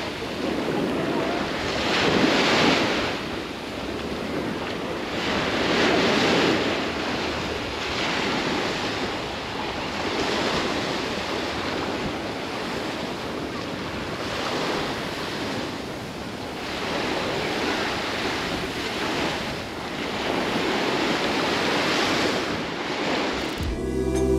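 Sea surf: small waves breaking and washing up a sandy shore, swelling and fading every few seconds. Music with a low beat cuts in near the end.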